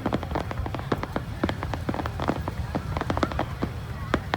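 Fireworks crackling: a dense, irregular run of sharp pops and cracks, several a second, over a steady low rumble.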